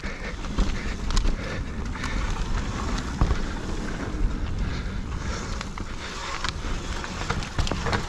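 Mountain bike rolling fast down a loose, stony gravel trail: a steady rush of tyre noise with frequent sharp knocks and rattles as the bike hits stones and bumps, the loudest about three seconds in.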